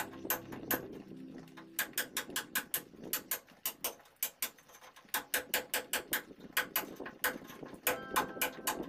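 Hammer blows on a cold chisel chipping out a groove in a brick wall for electrical wiring: sharp, uneven strikes, about three a second.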